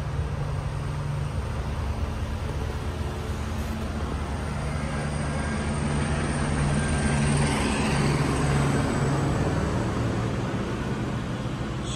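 Steady low rumble of road traffic, swelling about halfway through as a vehicle passes and easing slightly near the end.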